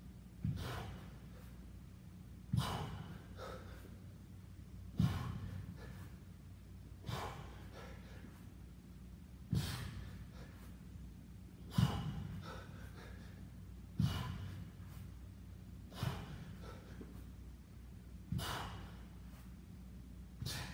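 A man breathing hard under exertion: a sharp, forceful exhalation about every two seconds in an even rhythm, each starting with a short low thump and trailing off, paced with the repetitions of a kettlebell exercise.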